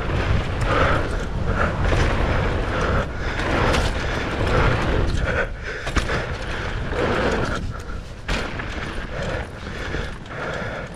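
Mountain bike descending a groomed dirt bike-park trail: a steady rushing rumble of wind and tyres, with frequent knocks and rattles from the bike over bumps.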